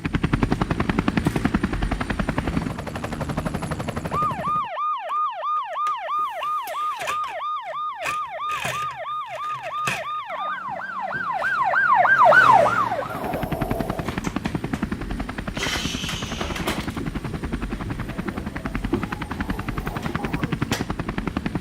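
Rapid chopping of a helicopter rotor. It is broken off for about eight seconds by a fast-yelping police siren, about three yelps a second, which jumps higher in pitch and grows louder before fading. Then the rotor chopping returns.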